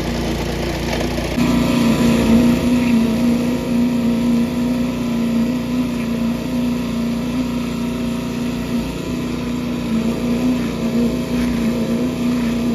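Engine running steadily on a construction site during a concrete pour. Its note steps up and gets louder about a second and a half in, then holds.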